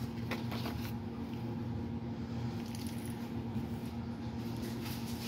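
Steady low background hum, with a few faint clicks and light rustles as paper bills and plastic counting chips are handled.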